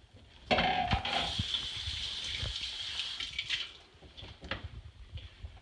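A kitchen tap runs into the sink for about three seconds, then shuts off, followed by a few faint knocks.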